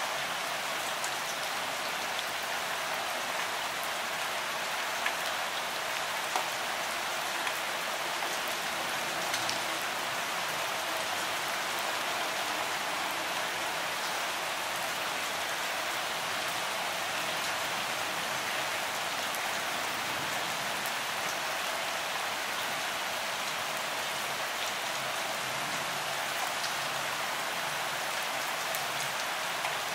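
Steady rain falling: an even, hissing wash of drops, with now and then a single louder drop ticking.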